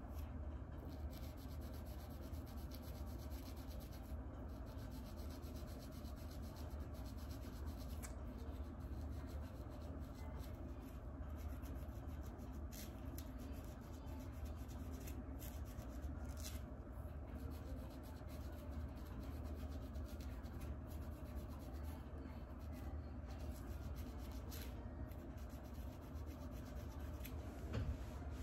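Plastic fine-tooth comb scratching and rubbing through hair against a dry, flaky scalp, in many short repeated strokes, over a low steady hum.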